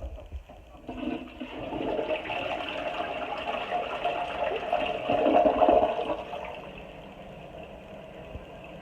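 Household flush toilet flushing: water rushes in about a second in, loudest around five to six seconds, then eases to a quieter steady running as the cistern refills.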